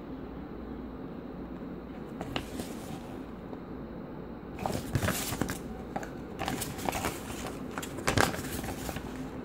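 Paper rustling and crackling as a folded printed instruction leaflet is handled and its pages turned, over a steady low hum. A brief rustle comes about two seconds in, and denser, louder handling runs through the second half.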